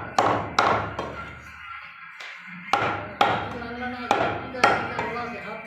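Meat cleaver chopping beef: six sharp strikes in three pairs, each followed by a short ringing tail.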